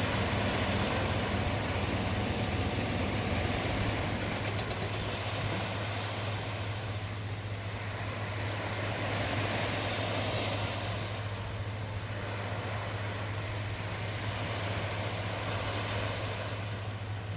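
Sea surf washing in, swelling and fading every few seconds, over a steady low hum.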